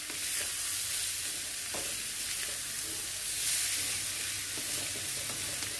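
Grated carrots sizzling in ghee in a metal kadai while a spatula stirs sugar through them, with light scrapes of the spatula against the pan every second or so.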